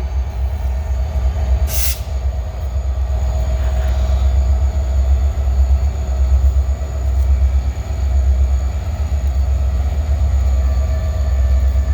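CSX freight train's diesel locomotives running with a steady low rumble as the train slowly backs up, with a faint steady whine over it. A single sharp click sounds about two seconds in.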